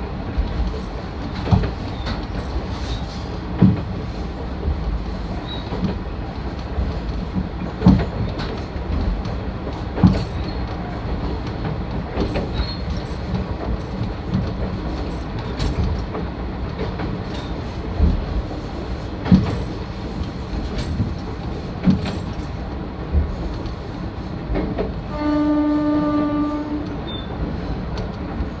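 Isumi 350 diesel railcar running on jointed track: a steady running rumble with the clack of wheels over rail joints every couple of seconds. Near the end, one steady horn blast of about two seconds.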